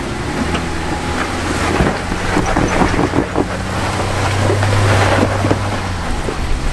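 An off-road 4x4's engine running under load as it crawls over the rock ledges, its hum swelling from about four to six seconds in, with crackling from tyres on rock and wind on the microphone.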